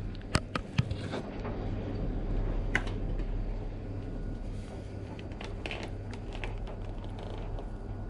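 Scattered small clicks and taps of hands working a plastic mudguard and its rubber O-ring bands onto a mountain bike's suspension fork, over a steady low hum.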